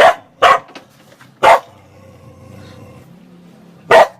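A dog barking four times, short sharp barks: two in quick succession, a third about a second and a half in, and one more near the end.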